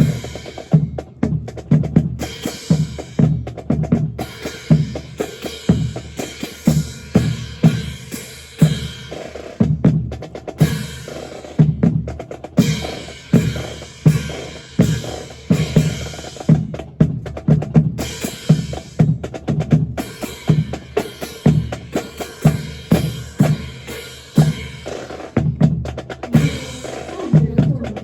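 Percussion section playing a steady drum cadence: regular bass-drum strikes under snare-drum patterns and rolls.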